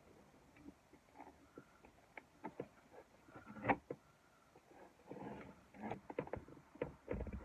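Faint scraping and tapping of a notched plastic spreader working construction adhesive across the floor, with one louder knock a little before halfway. Near the end, a vinyl floor plank is set down and pressed into place, giving a few soft clicks and scrapes.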